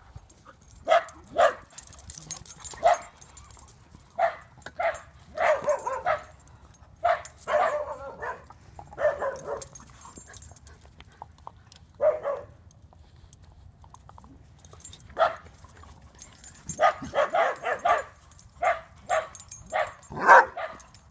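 Dogs barking during rough play: short barks in irregular bursts, with a quick run of several about three-quarters of the way through and the loudest bark near the end.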